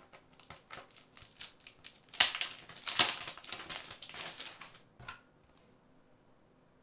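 Packaging of an art-plate prize being handled: a run of quick crackles and rustles, loudest about two to three seconds in, stopping about five seconds in.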